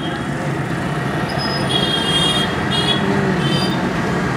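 Busy street ambience: a steady hum of traffic and crowd noise. A few short, high, thin tones come and go about two and three seconds in.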